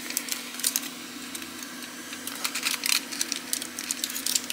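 Crumpled aluminium foil crinkling and crackling in irregular bursts as it is pressed around components on a circuit board to mask them from hot air, over a faint steady low hum.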